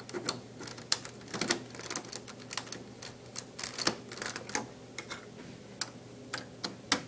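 Plastic Lego bricks clicking and knocking as pieces are pressed back into place, a string of short, irregular clicks.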